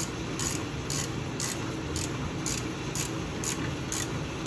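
Hand ratchet with a 19 mm socket being swung back and forth to run in a bolt, giving a short rasp of pawl clicks on each return stroke, about two strokes a second.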